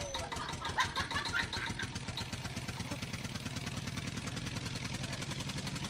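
A cat purring: a steady, rapid, low rumble that settles into an even rhythm after the first couple of seconds.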